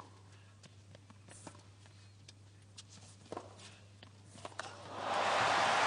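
Tennis rally: a series of sharp racquet-on-ball strikes and ball bounces on a hard court. About five seconds in, loud crowd applause and cheering swells up as the point is won with a winning shot.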